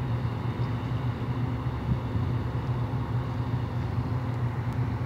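Steady low drone of a work ship's diesel engine as the vessel passes slowly.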